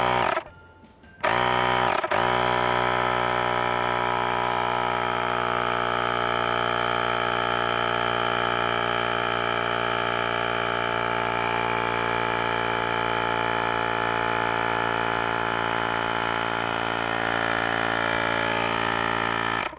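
Cordless electric air compressor (tyre inflator) pumping air into a water-filled 1.5-litre PET bottle rocket, the bottle's pressure climbing to about 4 bar. It runs for a moment, stops, restarts about a second in, then runs steadily and cuts off suddenly near the end.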